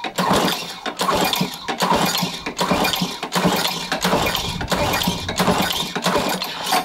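Craftsman lawnmower's 6.75 HP Tecumseh engine, run with its blade removed, firing roughly and unevenly, then cutting out suddenly at the end. With the blade off it won't start and keep running.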